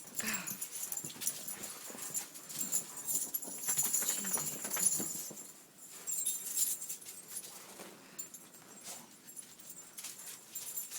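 A dog whimpering, with a short rising-and-falling whine right at the start. Many short scuffs and crunches from movement through deep snow carry on throughout.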